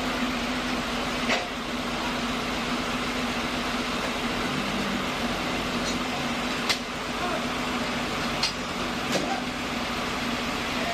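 Sawmill machinery running with a steady hum and noise, with a few sharp knocks at irregular intervals.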